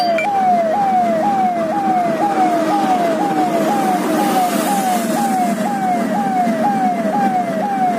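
Police siren sounding a rapid, repeating falling tone, about two sweeps a second, over the steady hum of a vehicle driving at speed.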